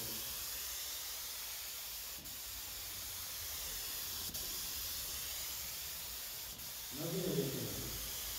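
Air hissing steadily from a gravity-feed paint spray gun laying clear coat onto a car's body panels, with three very brief dips.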